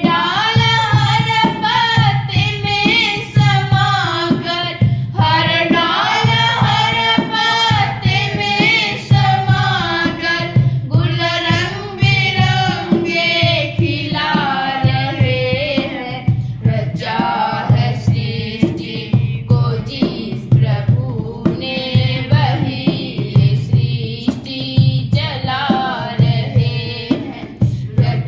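A woman singing a Hindi devotional song with vibrato-laden held notes over a steady drum beat.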